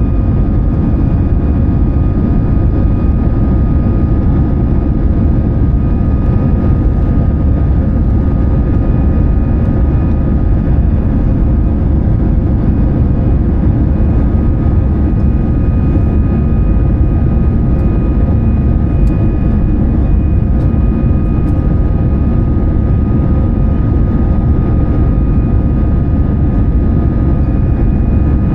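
Steady cabin noise of an Airbus A320-214: a constant low rumble of its CFM56 engines and airflow, with faint steady tones above it.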